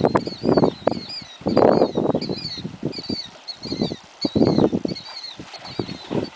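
A horse stamping and splashing in a muddy puddle of shallow water, with hooves churning the water in irregular bursts. Birds are chirping steadily over it.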